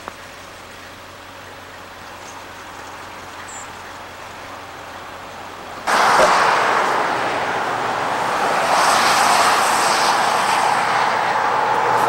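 Steady road traffic noise, a distant hum for the first half with a couple of faint high chirps, then suddenly much louder about six seconds in as a dense, continuous rush of passing vehicles.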